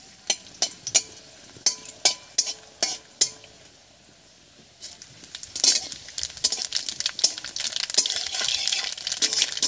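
Dried red chillies in hot mustard oil give a few sharp pops in the first three seconds. About five and a half seconds in, nigella seeds (kalo jira) hit the oil and set off a dense, crackling sizzle: the oil is hot enough for the tempering (phoron).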